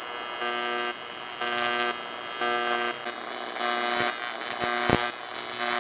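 AC TIG welding arc on aluminium from a Sanjoe TIG200 AC/DC in pulse mode: a steady crackling hiss with a buzzing tone that switches on and off about once a second as the current pulses between the high main current and the low background current. Two short sharp ticks come near the end.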